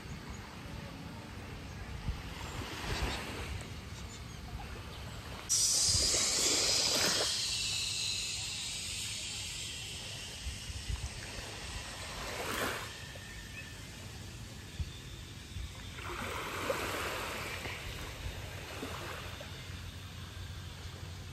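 Small waves lapping and washing on a sandy shore, swelling and fading every few seconds, with wind on the microphone. A loud hiss of wind sets in suddenly about five seconds in and fades over a few seconds.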